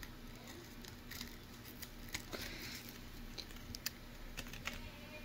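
Thin cardboard cover of a rolling-paper booklet being torn by hand: faint scattered crinkles and small clicks, with a short rip about two seconds in.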